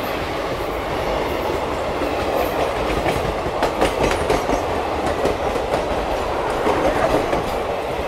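Indian Railways passenger trains running side by side on adjacent tracks, heard from an open coach door: a steady rumble and rush of wheels on rail, with clicks over rail joints that come more often from about three seconds in.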